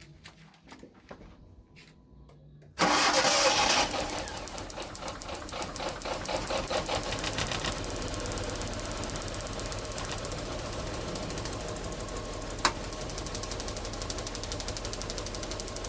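Hyundai Getz 1.3 four-cylinder petrol engine starting about three seconds in, then idling roughly with an uneven pulse: it is misfiring, with two dead cylinders. A single sharp click sounds late on.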